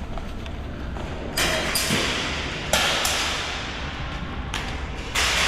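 Airsoft gunfire: five sharp shots, two close together about a second and a half in, one near three seconds and two more near the end, each trailing off into a fading hiss, over a steady low rumble.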